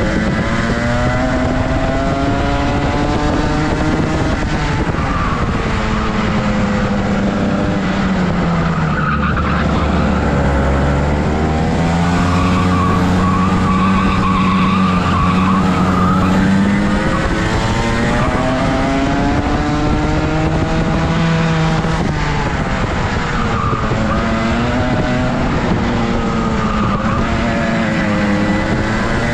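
Rotax two-stroke kart engine running hard, its pitch rising as it accelerates and falling as it slows, again and again without a break.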